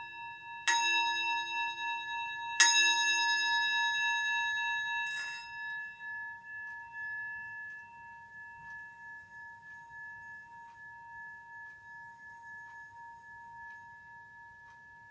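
Metal singing bowl struck twice with a wooden striker in the first few seconds, each strike setting off a bright, long ring. About five seconds in the higher overtones drop away and the striker is run around the rim, keeping up a steady, gently wavering hum that slowly fades.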